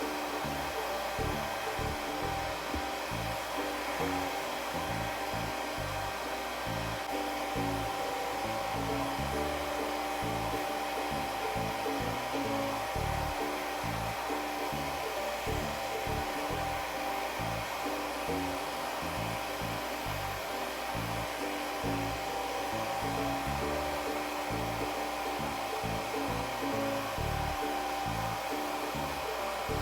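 Hair dryer blowing steadily, a constant airy rush with a steady whine, over background music.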